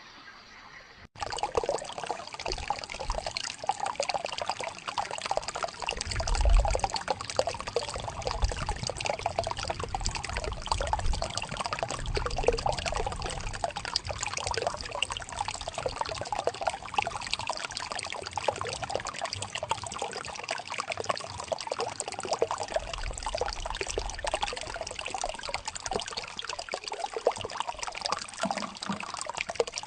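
Water flowing and splashing in a steady, busy trickle, like a small stream running over stones. It starts abruptly about a second in, with a brief low rumble a few seconds later.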